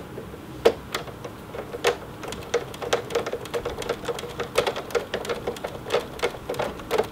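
A hand screwdriver turning the bottom-cover screws into a Singer Heavy Duty sewing machine's base: a quick, irregular run of small clicks and scrapes, several a second.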